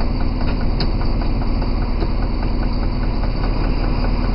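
Diesel engine of an SNCF BB 67300/BB 67400-class locomotive idling steadily while the engine stands still, heard from the cab.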